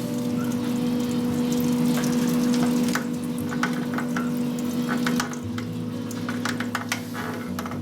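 Lathe running with a steady motor hum while working the spinning drive shaft down to size, with an irregular crackling, sizzling noise from the work on the metal. The hum drops a little about five seconds in.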